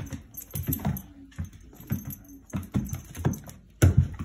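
Cat and dog play-wrestling: irregular thumps and scrabbling of paws and bodies on a wooden floor and rug, with a light jingle of a collar tag. The loudest thump comes about four seconds in.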